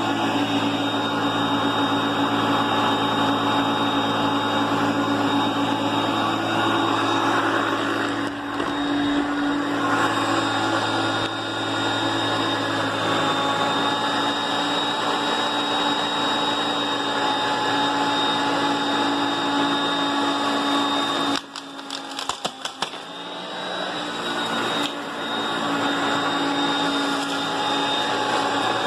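Upright vacuum cleaner running steadily, with a high whine over its motor hum. About twenty seconds in, the sound drops sharply with a few clicks and rattles, then builds back up over a few seconds.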